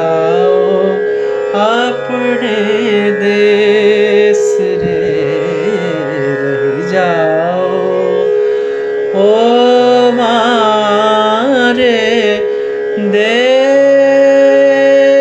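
Indian classical thumri singing: a voice singing long, gliding, ornamented phrases without words over a steady tanpura drone, settling on a long held note near the end.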